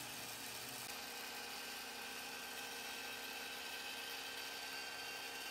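Faint, steady whir and hum of a running machine, with a constant tone and no change.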